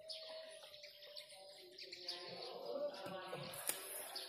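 Faint bird chirps, with a short sharp click near the end.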